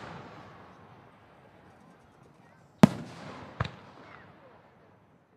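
Fireworks shells bursting: two sharp bangs, the second smaller, less than a second apart partway through, each trailing off into a long rolling rumble. Before them the rumble of an earlier burst dies away.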